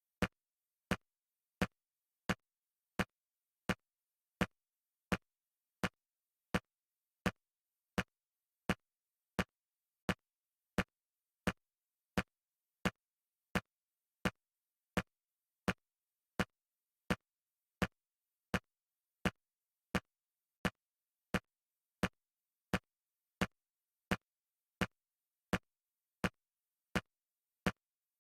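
Aliens-style motion tracker sound effect in its 'nothing close' state: a short electronic pulse repeating steadily about every 0.7 seconds, with silence between and no return signal.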